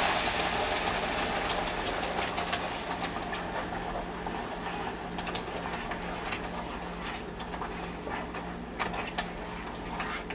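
Sizzling in a pot dying away as blended tomato and onion paste is poured in, then a spatula stirring the thick sauce with frequent clicks and knocks against the pot. A steady low hum runs underneath.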